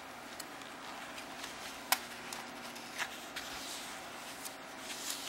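Paper pages of a book being handled and turned by hand: a sharp paper tick about two seconds in, a smaller one about a second later, then soft page rustles near the end, over a faint steady room hum.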